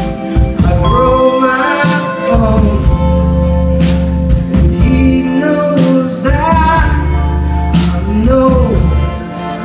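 Live band playing a neo-soul song: a man singing lead over keyboard, bass guitar, guitar and drum kit, with cymbal hits marking the beat.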